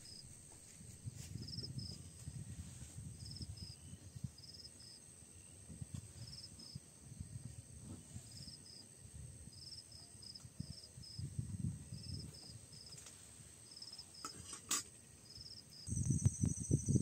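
Crickets chirping faintly in short two- or three-pulse chirps, roughly once a second, over a steady high insect drone and a low rumble. There is a single sharp click late on, and the low rumble grows louder near the end.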